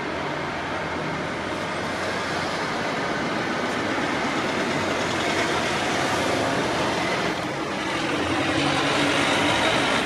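Road traffic on a city street: the continuous noise of cars passing, swelling in the middle, dipping briefly and rising again near the end.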